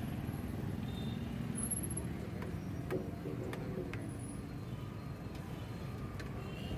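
Steady rumble of street traffic, with a few short light clinks of a steel ladle working in a large steel pan of chole.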